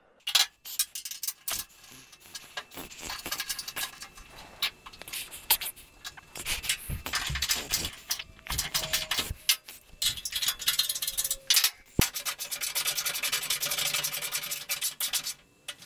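Metal scraping and clicking as a steel alignment pin and a bolt are worked into the radiator support's bolt holes, then a hand ratchet clicking rapidly as it runs the bolt in during the last few seconds.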